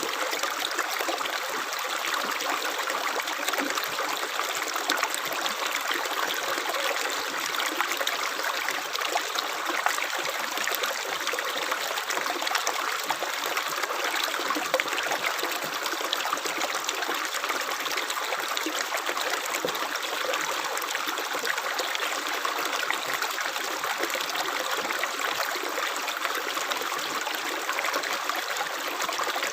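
Running water flowing steadily, an even rushing and trickling with no breaks or single splashes.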